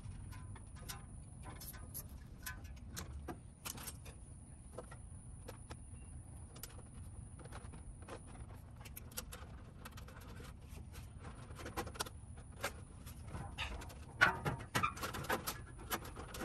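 Fan-motor wires and the metal fan grille of an air-conditioner condenser being handled, a scatter of small clicks, rustles and metallic rattles as the wires are fed through the conduit, busier and louder near the end.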